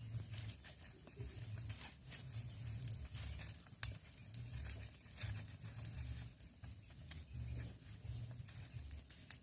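Crickets chirping in a faint, high, evenly pulsed rhythm, with a few sharp pops from a wood bonfire and an uneven low rumble underneath.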